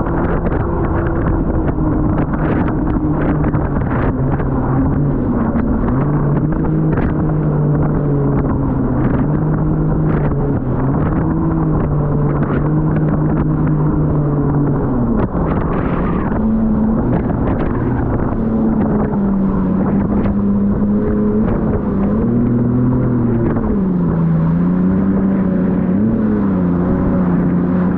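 Jet ski engine running under way, its pitch dipping and rising several times as the throttle is eased and opened again.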